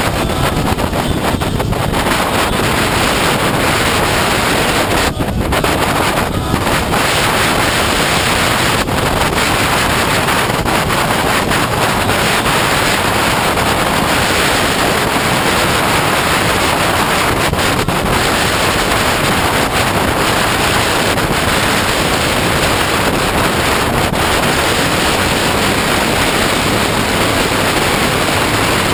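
Steady wind rush on the microphone of a camera mounted on a moving motorcycle, with the motorcycle's road noise mixed in.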